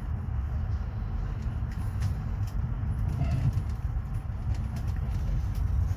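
Steady low rumble of a regional train running, heard from inside the carriage, with a few faint clicks.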